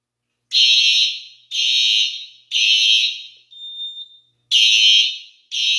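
Simplex 4903-9236 fire alarm horns blasting in the temporal-three evacuation pattern: three harsh blasts about a second apart, a pause, then the next set begins. The panel has been put into manual evacuation.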